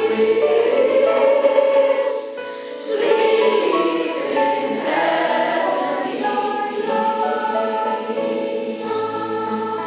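Middle school choir singing held, slowly changing notes, with a brief lull about two and a half seconds in.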